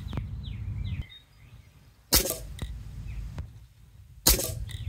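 Two shots from an Air Arms XTi-50 pre-charged pneumatic air rifle, about two seconds apart, each a sharp crack. Birds chirp faintly in between.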